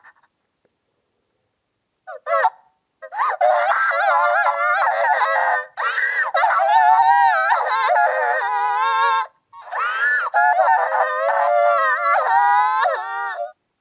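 Little Miss Calamity's cartoon crying, electronically pitch-shifted and distorted into long, wavering, honk-like wails. It starts about two seconds in and breaks off briefly about two-thirds of the way through.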